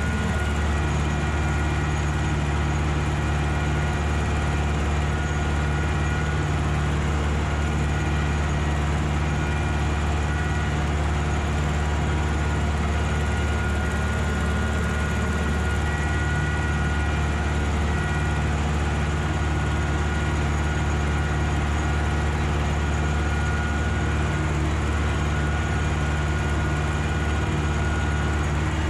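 Ursus tractor's diesel engine running steadily, a deep drone that holds one pitch without revving up or down.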